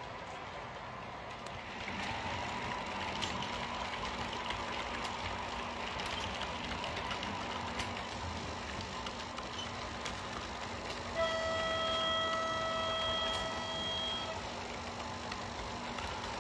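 H0-scale model train running on the track, a steady rolling noise with scattered clicks that grows louder about two seconds in. About eleven seconds in, a locomotive horn sounds once, a single steady tone held for about three seconds.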